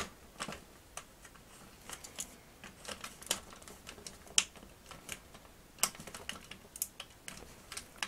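Quiet, irregular clicks and small cracks of hard plastic as a pocket-knife blade prises apart the glued seam of a plastic toy vehicle's body shell.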